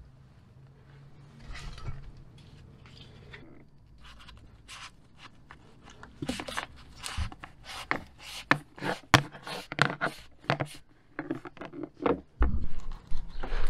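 A red-and-black two-wire cable being pulled up through a rubber plug in the floor, rubbing and scraping, with a quick run of short, irregular clicks and taps from about halfway through.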